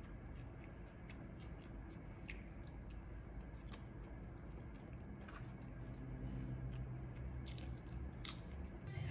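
A person chewing food close to the microphone, with a few sharp clicks scattered through, over a steady low hum.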